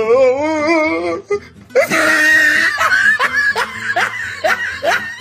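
Meme laugh sound effect: a drawn-out 'oh' sung with a wavering vibrato, then about two seconds in a long burst of laughter, each 'ha' rising in pitch, over a music backing.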